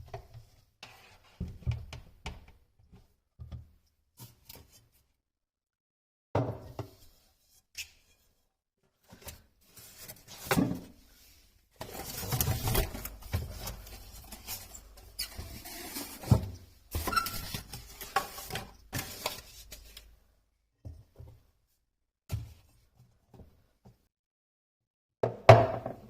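Household handling sounds: scattered knocks and thuds of objects being picked up and set down, with several seconds of continuous rustling noise in the middle and one loud thump near the end.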